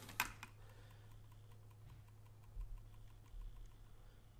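A couple of small clicks as metal rivet nuts knock about in a clear plastic box while one is picked out, followed by quiet room tone with a faint low hum.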